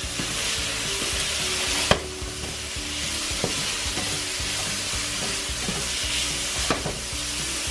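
Cubed chicken sizzling steadily in bacon grease in a cast-iron skillet while it is stirred with tongs, with a few sharp clacks of the tongs against the pan, the loudest about two seconds in and another near the end.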